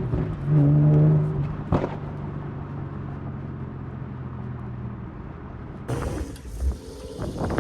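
Infiniti G37's V6 engine running steadily under way, a low droning note that swells about half a second in and then eases off. Shortly before the end it gives way abruptly to a rushing noise with a few knocks.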